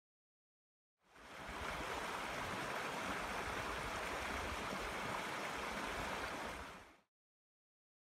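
Clear, shallow mountain stream running over a small riffle: a steady rush of water that fades in about a second in and fades out near the end.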